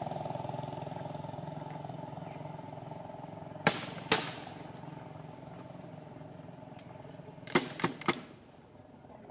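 A motor vehicle engine drones steadily and slowly fades away. Over it come sharp clicks: two about half a second apart near the middle, and three in quick succession near the end.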